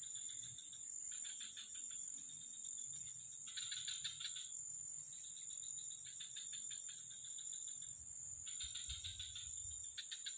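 Insects calling: a steady high-pitched drone with bursts of rapid pulsing chirps, each about a second long, coming every second or two.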